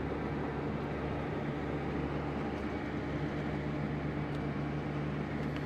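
Tractor engine running at a steady, even speed, heard from inside the cab.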